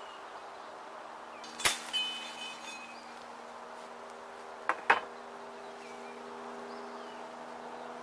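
Machete chopping through branches: a sharp whack with a brief metallic ring about two seconds in, then two quick chops close together near the five-second mark, over a steady low hum.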